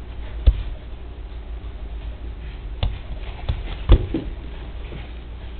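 Baby bouncing in a doorway jumper: a few irregular knocks from the jumper and his feet, the loudest about four seconds in, over a low steady hum.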